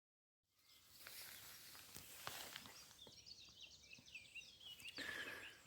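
Faint small birds chirping and twittering in quick high notes, with a few soft clicks.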